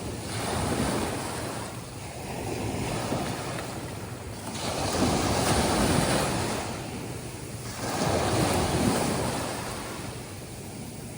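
Atlantic surf breaking and washing up onto a sandy beach, coming in rolling surges that swell and ease every few seconds. The biggest wave lands about halfway through, with another close behind it.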